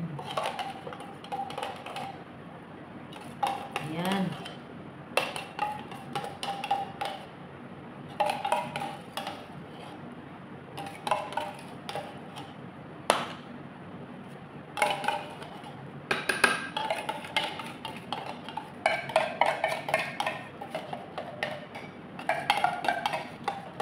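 A metal spoon scraping and clinking against a container in short repeated bursts, a second or so each, with pauses between them.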